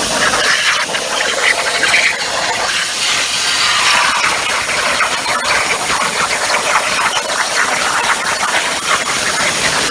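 Plasma torch on a CNC plasma table cutting quarter-inch carbon steel plate: a loud, steady hiss with a fine crackle.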